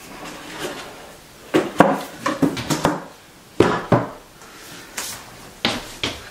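Boxes and small toiletry items being handled and set down in a wooden bathroom cabinet: a handful of sharp knocks and clatters, bunched in the middle and again near the end, with softer rustling between.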